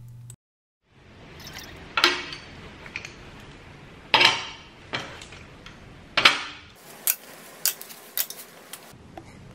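Hard metal objects knocking and clinking together: three loud ringing knocks about two, four and six seconds in, then several lighter clinks.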